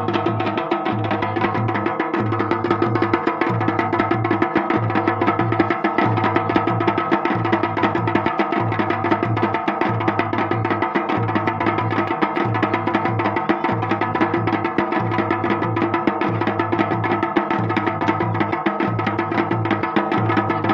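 Dhol and damaun drums played together in a fast, steady rhythm for a Garhwali jagar.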